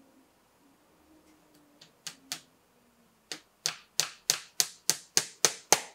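Small hammer tapping brads into a wooden glazing bead around the glass of a cabinet door. Two light taps come about two seconds in, then a steady run of sharp taps, about three a second, that grows louder.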